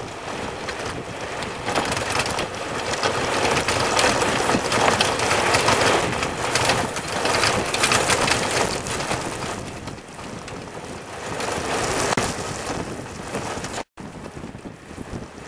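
Road and wind noise from a recumbent cargo bike and its trailer rolling fast on asphalt: tyre rumble with wind buffeting the trailer-mounted microphone, rising and falling in strength. The sound drops out for an instant near the end.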